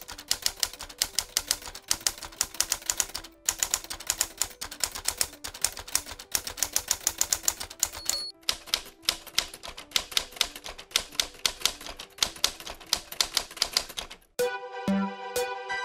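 Typewriter sound effect: a rapid run of key clacks, breaking off briefly twice, over faint background music. The typing stops a second or so before the end, and the music's melody comes up.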